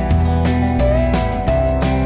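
Background music with a steady beat and held, sometimes sliding, pitched notes.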